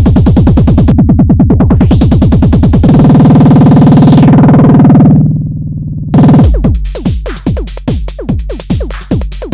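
Arturia DrumBrute analog drum machine playing a rapid run of hits that merges into a buzzing roll, with a sweep falling in pitch over it. After a brief drop, a loud hit brings back a steady beat of low, decaying drum hits.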